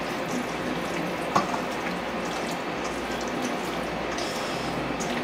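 Wet squishing and squelching of mustard-coated raw chicken pieces being mixed by hand in a stainless steel bowl, over a steady background hiss, with one sharp click about a second and a half in.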